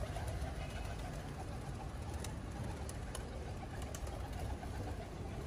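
Domestic pigeons cooing over a steady low background rumble, with a few short sharp clicks in the middle.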